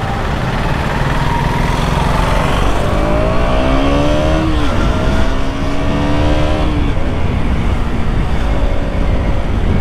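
KTM Duke 200's single-cylinder engine pulling hard under acceleration. Its pitch rises, drops suddenly about four and a half seconds in at an upshift, then holds steady, under heavy wind noise on the microphone.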